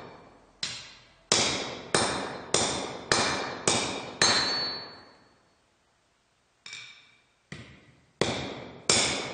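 Hand hammer striking a metal piece, with even blows a little more than half a second apart, each ringing briefly. About seven blows are followed by a pause of roughly two seconds, then the hammering starts again, lighter at first.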